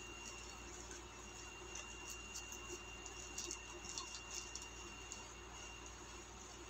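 Faint crinkling of a plastic courier mailer bag being handled, a few soft crackles scattered over a steady hiss and a thin, steady high-pitched tone.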